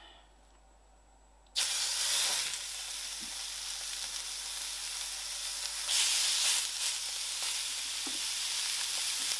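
Hot oil sizzling in a frying pan as a ball of raw beef mince is set in, starting suddenly about a second and a half in. It flares again about six seconds in as a second ball of mince goes in, then sizzles steadily.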